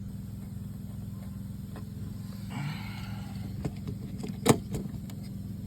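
A part being pressed onto the winch: handling rustle and a few light clicks, then one sharp click about four and a half seconds in as it seats, over a steady low hum.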